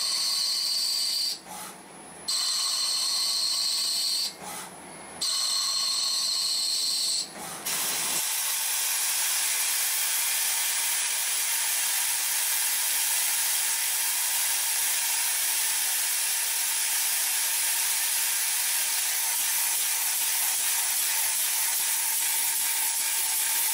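CNC lathe cutting metal under flood coolant: a loud hiss with a high whine in it, broken by short pauses every couple of seconds. From about eight seconds in it becomes one steady hiss while a brass bar is turned, and it stops abruptly at the end.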